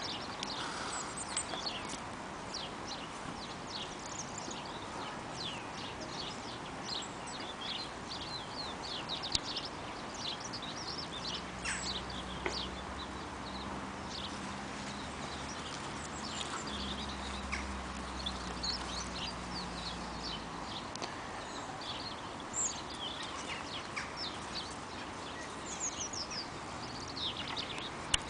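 Small birds chirping busily, many short high calls one after another. A low steady hum comes in about eleven seconds in and fades out about two-thirds of the way through.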